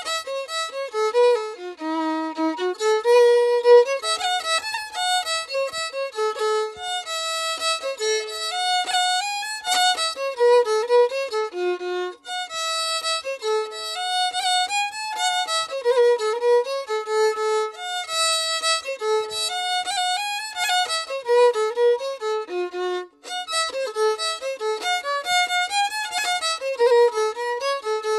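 Background music: a fiddle playing a quick melody of short stepped notes.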